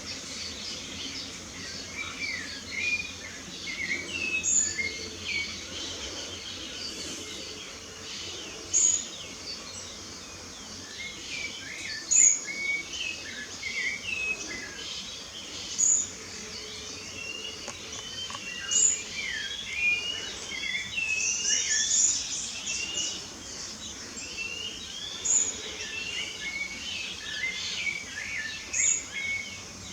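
Several birds singing together, a busy chorus of chirps and whistled phrases. A short, high single note repeats every three to four seconds and is the loudest sound.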